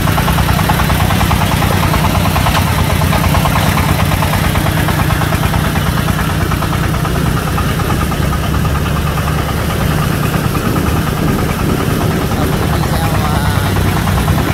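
A công nông three-wheeled farm truck's 24-horsepower diesel engine running steadily as the truck drives along.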